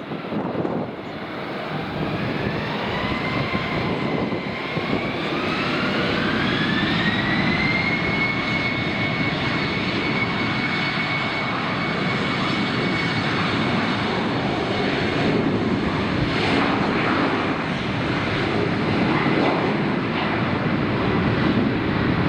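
Jet airliner's engines spooling up over a steady rumble: a whine rises over several seconds, then holds at a steady pitch.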